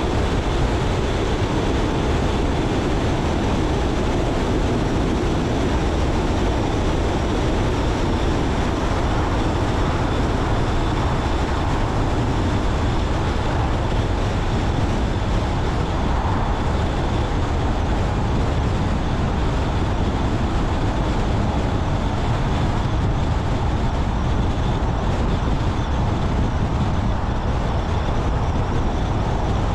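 A car driving along the road, its engine and tyres making a steady, even rumble of road noise.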